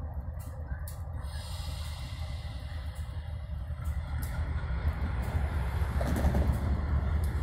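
GE B23-7 diesel-electric locomotive's twelve-cylinder GE 7FDL engine running with a deep, steady rumble. It grows louder about five seconds in as the locomotive throttles up, puffing exhaust, to creep forward.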